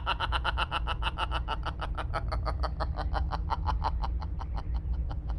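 A man's long, fast pulsing laugh, about nine quick even pulses a second, fading out near the end.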